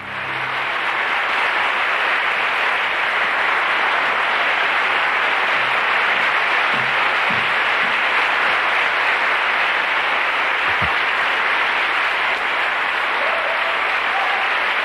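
A large audience applauding steadily, a dense wash of many hands clapping that swells up in the first second and holds.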